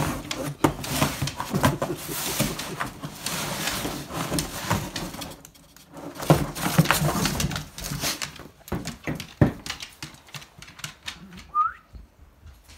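A dog clawing and tearing at a cardboard shipping box: rapid scraping, rustling and ripping of cardboard with fast claw clicks, in two spells of a few seconds each, then thinning to scattered scrapes and taps.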